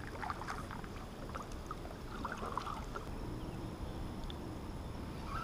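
Quiet on-the-water sound from a small fishing kayak: a low steady rush with faint, scattered small ticks and drips.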